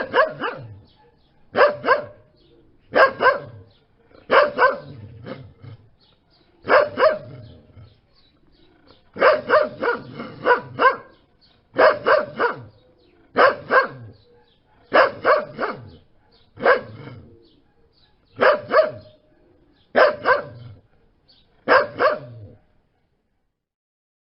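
A dog barking repeatedly, a bark or a quick run of barks about every one and a half seconds, with a longer run of several barks about ten seconds in. The barking stops about two seconds before the end.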